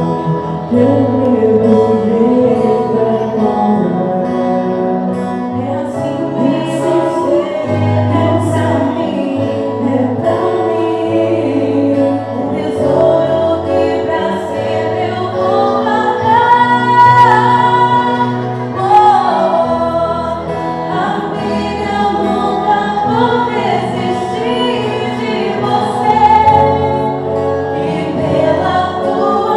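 Music: a vocal group singing a slow song in harmony, with instrumental accompaniment and a steady bass line.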